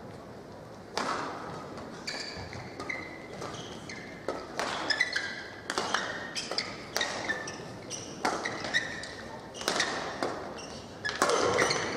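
Many short squeaks and knocks in quick, irregular succession, typical of shoes and mops on a badminton court mat, echoing in a large hall.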